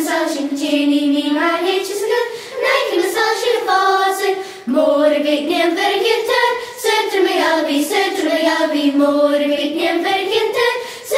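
High young voices singing a Gaelic song together in unison: a slow melody of long held notes that rise and fall, with short breath breaks between phrases.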